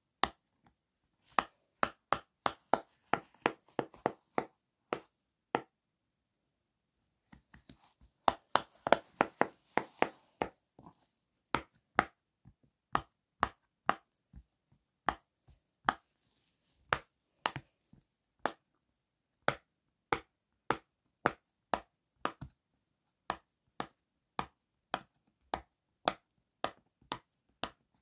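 Bubbles of a round silicone pop-it fidget toy pressed through one at a time by fingertips, each giving a short, loud pop. The pops come in quick runs at first, stop for a second or so, then fall into a steady pace of about two a second.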